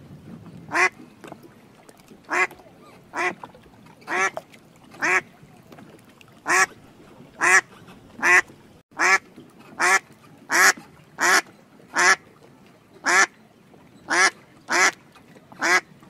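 A duck quacking: about seventeen short single quacks, one roughly every second, over faint low background noise.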